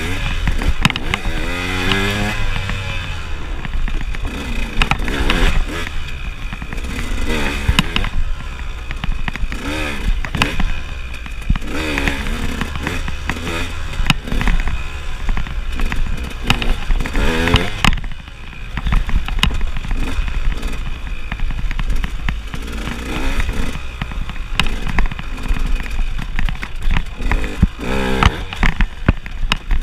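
KTM enduro motorcycle engine revving hard, its pitch rising and falling again and again as the rider accelerates and backs off. Frequent knocks and rattles from the bike as it crosses rocky ground, with a short dip in engine noise about two-thirds of the way in.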